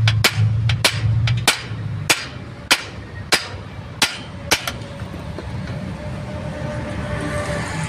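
Sharp metallic taps and clicks, about two a second, from a hand tool working on a truck propeller shaft's universal joint fittings. They stop about four and a half seconds in, and a steady vehicle engine hum follows.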